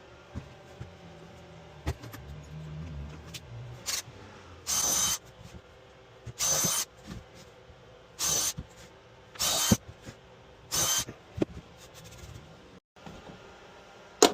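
A power tool runs in five short bursts of about half a second each, with scattered clicks and knocks in between.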